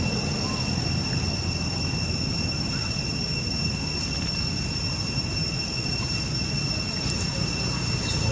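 A steady, high-pitched insect drone, unbroken throughout, over a low rumbling background noise.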